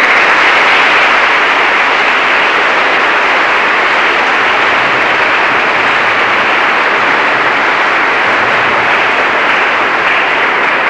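Audience applauding, loud and steady, at the close of a speech.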